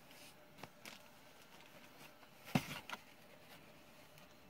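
Handling packaged die-cast toy cars: a few light taps, then a sharp knock about two and a half seconds in, followed by a couple of quicker clicks.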